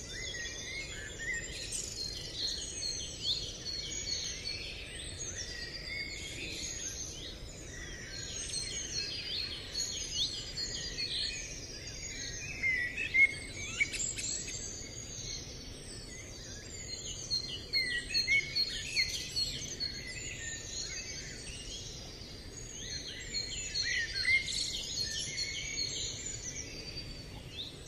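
Many songbirds chirping and whistling at once, short overlapping calls over a faint steady hiss, busier in a few stretches.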